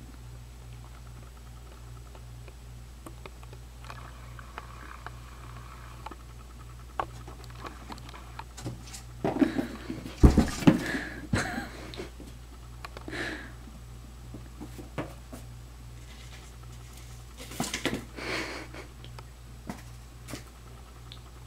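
A kitten playing with cardboard toys on carpet: scattered light scuffs and clicks, and two spells of rustling and knocking, with heavy handling bumps from the camera being moved about ten seconds in and a second cluster near the end. A low steady hum runs underneath.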